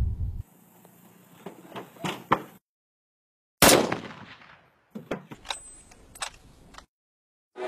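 A single loud rifle shot about three and a half seconds in, its report dying away over about a second, with a few sharp clicks before it and several more after it.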